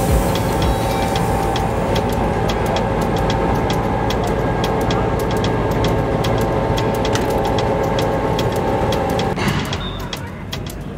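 A vehicle running steadily: a dense hum with a few steady tones and rapid faint ticking. About nine and a half seconds in, the tones cut off and the sound drops somewhat quieter.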